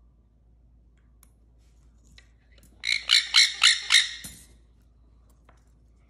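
A Nanday conure squawking: a rapid string of about five loud, rasping squawks, starting about three seconds in and lasting about a second and a half.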